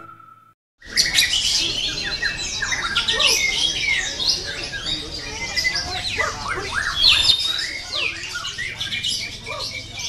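A caged white-rumped shama (murai batu) singing a rapid, varied song of high chirps, whistles and sliding notes, starting about a second in. The end of a piece of music fades out just before.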